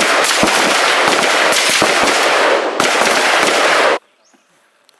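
Several guns firing on a firing line, shots fired in rapid pairs and overlapping into a dense, continuous crackle that dips briefly just before three seconds in and stops abruptly about four seconds in.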